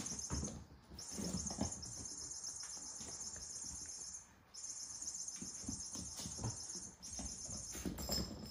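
A high, shrill chirping trill runs in stretches of a few seconds, with short breaks about a second in, at four and a half seconds and at seven seconds. Under it come soft thumps of kittens scampering and batting toys on a hard floor.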